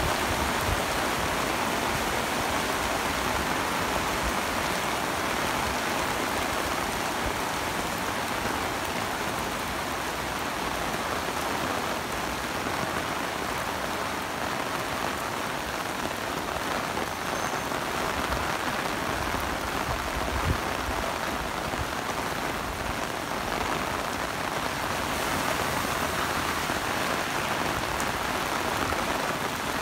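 Heavy tropical rain pouring steadily onto a paved street, a constant dense hiss of rain.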